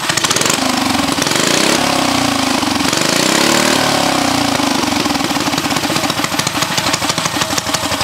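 Mini bike's small single-cylinder engine running on a stand with the rear wheel spinning, revved up and back down between about two and four seconds in. The owner suspects the clutch is bad.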